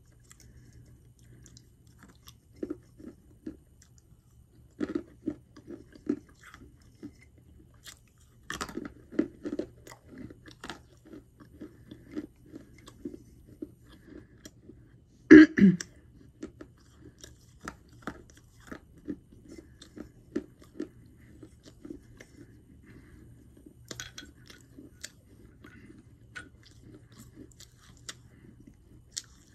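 A person chewing hard pieces of Mexican terracotta clay: repeated short crunches in bouts, with one loudest crunch about halfway through.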